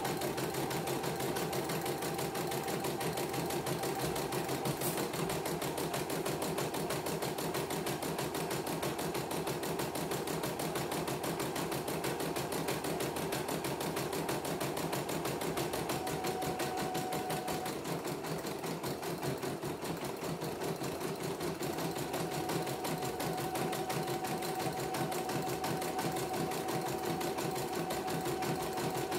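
CNY computerized embroidery machine running steadily, its needle stitching at a fast, even rhythm as the hoop moves a test design under it after repair.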